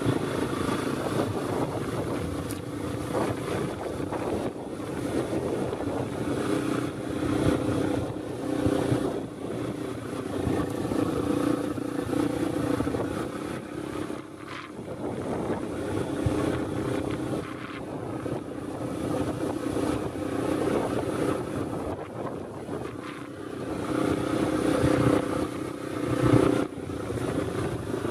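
Small dirt bike's engine running under way on a rough dirt trail, its note rising and falling with the throttle.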